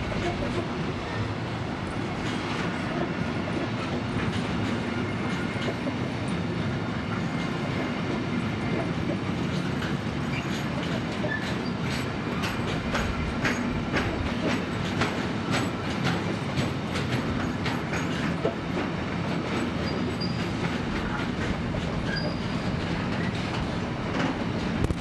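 Intermodal freight train rolling past steadily. Its wheels click rhythmically over rail joints, the clicking growing denser about halfway through, with a few brief faint squeals.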